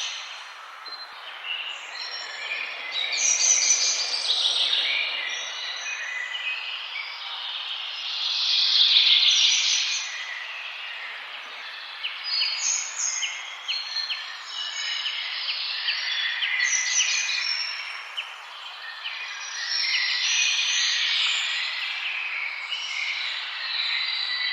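A chorus of several wild songbirds singing and chirping at once in a forest, their trills and chirps overlapping continuously, over a steady background hiss.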